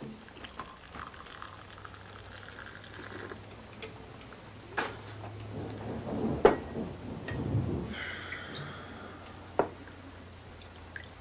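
Kitchen handling sounds: a mug, spoon and kettle knocked and clinked at a tiled counter, a few sharp clinks spaced a second or more apart and a short clatter in the middle, over a faint steady hum.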